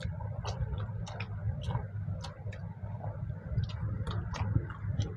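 People eating rice and mutton curry by hand: irregular wet clicks of chewing and lip-smacking, several a second.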